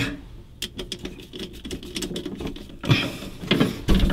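Worm-drive hose clamp being tightened with a small driver: a run of light, rapid clicks as the screw turns, with a couple of louder knocks about three seconds in.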